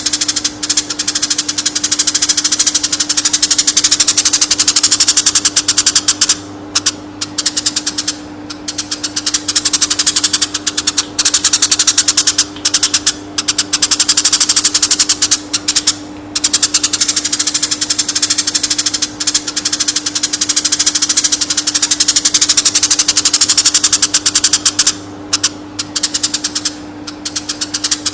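Eurasian tree sparrows chirping in a fast, dense stream of high chirps with a few brief pauses, over a steady low hum.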